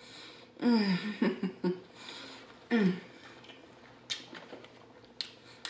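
A woman's voiced "mmm" hums of enjoyment while chewing a burger, three short ones in the first three seconds, each falling in pitch. Near the end come two short, sharp, hissy sounds.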